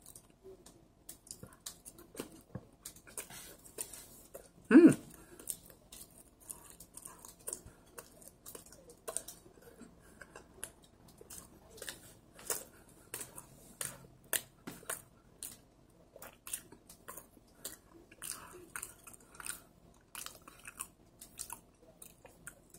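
Close-up chewing of a soft red bean bun: many small, wet mouth clicks and smacks throughout. There is one short, louder vocal sound about five seconds in.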